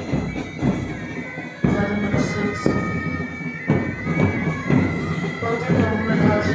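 Parade band playing march music, with sustained melody notes over a drum beat that falls about once a second.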